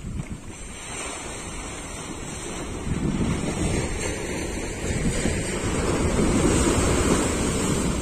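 Sea surf breaking and washing through a concrete tetrapod breakwater, growing louder from about three seconds in as a wave surges in among the blocks.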